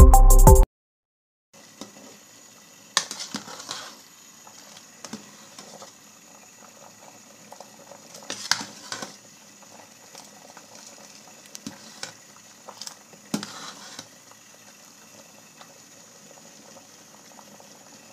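A burst of music cuts off just after the start. Then a pot of water bubbles at a steady boil, with a metal slotted spoon clinking and scraping against the pot now and then as it scoops out cooked macaroni.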